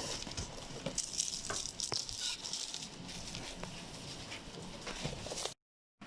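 Light rattling and rustling with scattered sharp clicks, as of things being handled. It cuts off abruptly to dead silence about half a second before the end.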